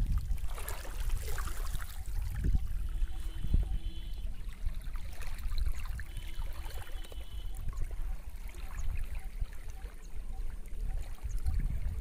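Small waves of a dam reservoir lapping and trickling against a grassy shoreline, under a steady low rumble of wind on the microphone.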